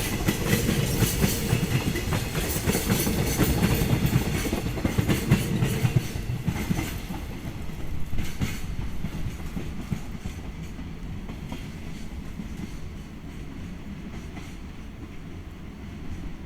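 Freight train's wagons rolling past with a steady clickety-clack of wheels over rail joints. After about six seconds the sound falls away and fades as the train moves off.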